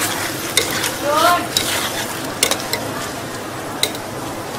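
Shrimp and glass noodles sizzling in a small steel wok over a gas burner, while a metal ladle and tongs stir and knock against the pan about four times.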